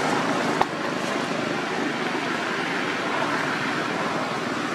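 Steady outdoor background noise with no clear pitch, with one sharp click about half a second in.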